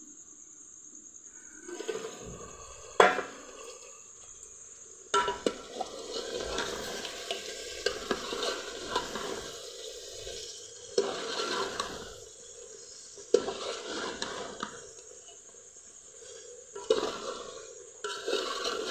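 Aluminium cooking pot of chicken curry being handled on a wood-fired chulha: the metal lid lifted off and set back, a spoon scraping and stirring in the pot, and several sharp metal clanks, the loudest about three seconds in. Crickets chirp steadily in the background.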